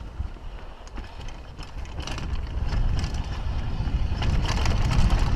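Kona Coiler downhill mountain bike descending a rocky dirt trail: tyres crunching over stones and the bike rattling with many quick clicks and knocks, under a low rumble of wind on a helmet-mounted camera's microphone. It grows louder about two seconds in.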